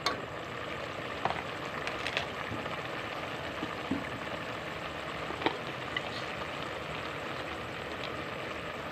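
Saag curry boiling hard in a metal pot over a chulha fire: a steady bubbling hiss with a few small pops.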